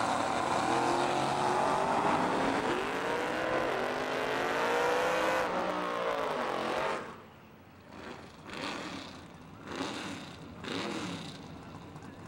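Two Chevrolet drag cars launching and accelerating down the strip, their engines revving up in rising sweeps through the gear changes. The sound drops away suddenly about seven seconds in, and a few short engine revs follow.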